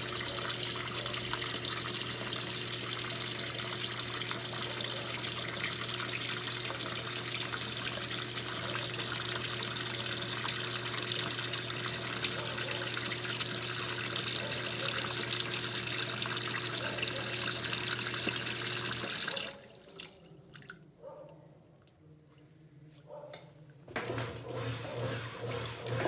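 Water running into the tub of a 1993 Brastemp Mondial top-loading washing machine as it fills, with a steady hum. It cuts off suddenly about three quarters of the way through, when the machine reaches its set water level. A few seconds later a pulsing low hum starts near the end.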